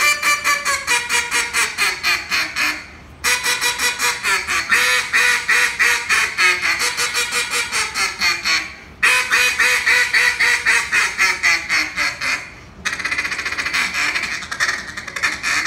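Billy Starks duck call blown in long strings of quacks that step down in pitch, broken by short pauses for breath about 3, 9 and 13 seconds in. Near the end comes a faster, denser run of notes.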